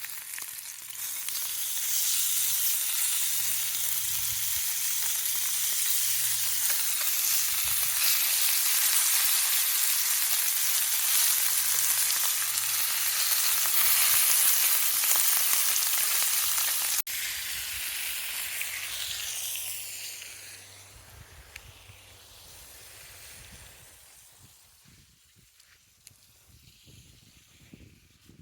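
Lamb chops sizzling on a hot grill: a dense, steady crackling hiss of fat and meat juices. It dies down to a faint sizzle about two-thirds of the way through.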